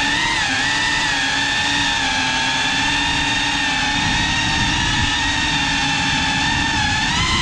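FPV cinewhoop quadcopter's motors and propellers giving a steady buzzing whine whose pitch wavers slightly with throttle, over a low rumble.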